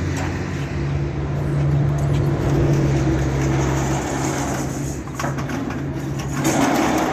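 An engine running steadily with a low, even hum that drops away about six seconds in.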